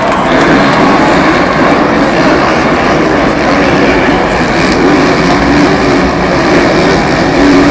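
Supercross motorcycles racing round the stadium, their engines merging into one dense, continuous loud noise.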